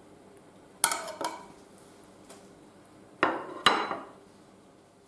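Dishes and cutlery clinking: two sharp knocks about a second in, then two more a little past three seconds, each ringing briefly.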